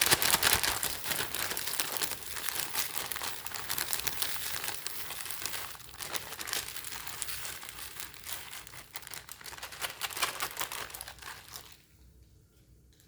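Plastic bag of rice crinkling and rustling as it is handled and opened, in a dense run of rapid crackles that stops about a second before the end.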